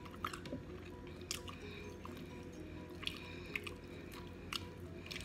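Wet, sticky sounds of fingers peeling a sauce-coated boiled shrimp and lips smacking while chewing: a handful of short squelches and clicks.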